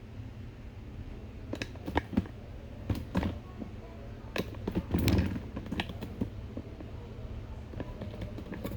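Scattered irregular clicks and knocks, a cluster of them loudest about five seconds in, over a steady low rumble.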